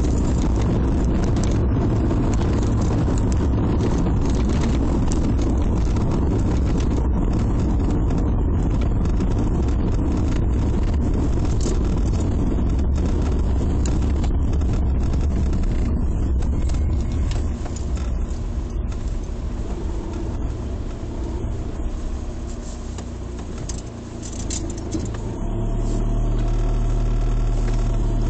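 Cabin noise inside a moving Volkswagen Passat: a steady low rumble of engine and tyres on the road. It quietens for several seconds past the middle, then returns as a steady low drone near the end.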